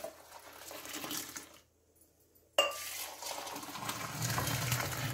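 Milk coffee being poured back and forth between vessels to froth it: liquid pouring and splashing with light clinks of metal. It stops for about a second partway through, then goes on.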